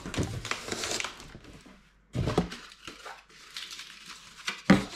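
Cardboard packaging being handled: stiff cardboard inserts rustling and scraping as they are pulled out of a cardboard box, with a knock about two seconds in and a louder one near the end.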